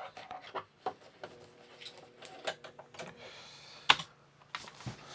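Scattered clicks and light knocks from hands working at the computer, with one sharper click about four seconds in, over a faint steady hum.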